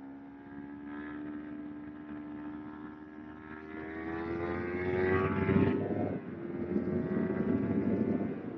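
Kawasaki Ninja 250R's parallel-twin engine pulling hard, its pitch climbing steadily as the bike accelerates, then dipping briefly about six seconds in before holding steady. Wind rush over the microphone grows with the speed.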